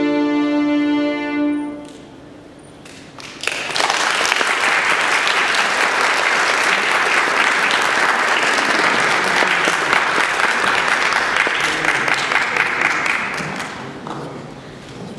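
Violin and piano hold a final chord that dies away about two seconds in. After a short pause an audience applauds, fading out near the end.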